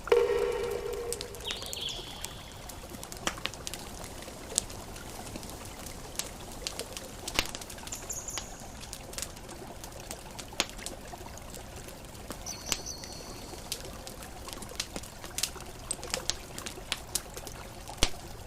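Campfire crackling: scattered sharp pops and snaps over a steady hiss. A short pitched call opens the stretch and is its loudest sound, and a few brief high chirps come later.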